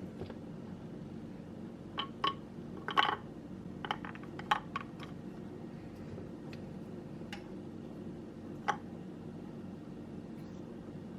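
Steady low hum with a cluster of light clicks and clatters in the first half and one more click later on.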